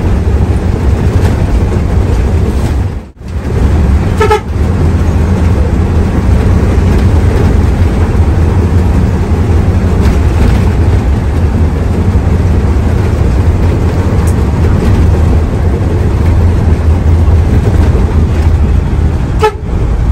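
Hino AK3HR Ranger bus's diesel engine running on the road: a loud, low drone with road noise. A short horn toot sounds about four seconds in. The sound cuts out briefly about three seconds in and again near the end.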